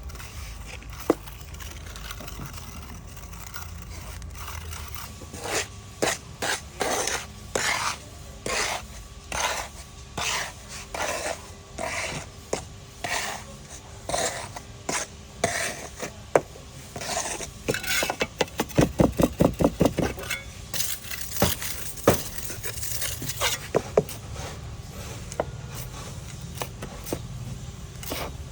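A hand tool working wet cement: a series of separate scraping strokes, then a quick run of taps, about six a second, lasting a couple of seconds, with a few sharp clicks.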